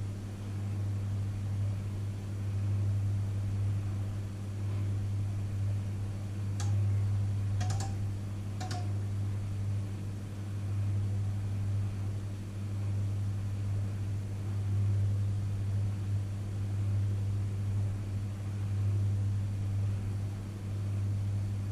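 Panasonic inverter microwave oven running with a steady low hum. Three faint clicks come about a second apart near the middle.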